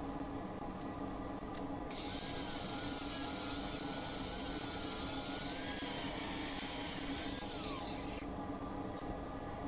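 Stick welding a build-up bead with 6013 rods: a hissing crackle of the arc that starts suddenly about two seconds in and stops about six seconds later, over a steady low hum.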